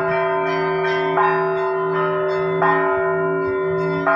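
Church bells ringing to call worshippers to a service: several bells struck about every second and a half, each strike ringing on over the steady deep hum of larger bells.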